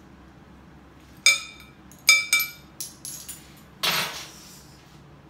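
A metal spoon clinking against a glass mixing bowl: several sharp, ringing taps in the first three seconds, then a short rustle about four seconds in.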